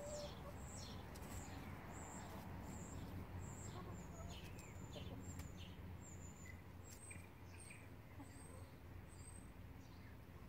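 A small wild songbird singing faintly: a run of short, high chirps and thin falling notes, roughly two a second, over a low steady rumble.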